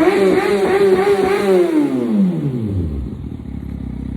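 Kawasaki ZX-6R's inline-four engine revving high with a wavering pitch, then the revs fall away steadily over about a second and a half to a low rumble near the end.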